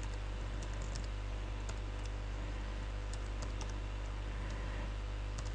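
Faint computer keyboard typing, a few scattered keystrokes over a steady low hum.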